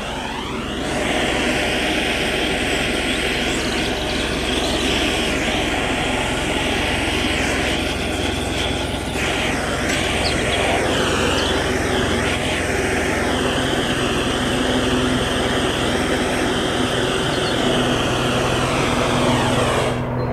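Gas blowtorch fed from a propane bottle, lit with a sudden pop and then burning with a loud, steady roar while it heats bitumen onto timber; the flame is cut off near the end.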